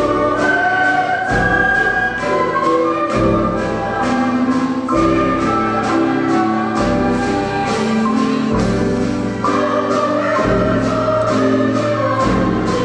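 Elementary-school ensemble performing live: orchestral instruments with a choir singing, over a steady beat and a bass line that moves about every two seconds.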